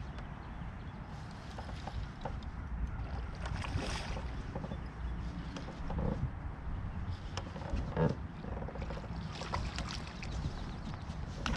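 Steady low rumble of a boat on the water, with scattered light clicks and knocks on top.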